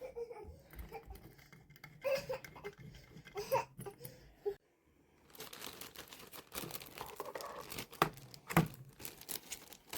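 Packaging being handled, crinkling and rustling. It is sparse at first and grows denser after a brief pause about halfway through.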